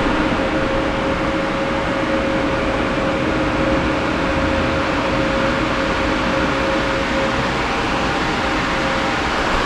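Exhaust fan with an induction motor running steadily: an even rush of air with a faint steady tone.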